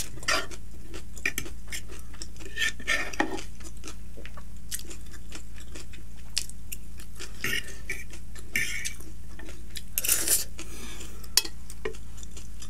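Metal fork tapping and scraping on a wooden serving tray as the last strands of chowmein are picked up, with close-up chewing and mouth sounds between the strokes. A steady low hum runs underneath.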